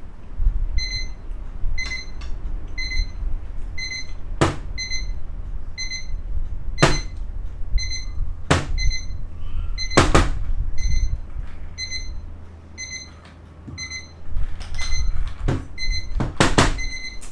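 Digital timer alarm beeping about once a second, signalling that the timed period is up. Several sharp knocks come in between the beeps.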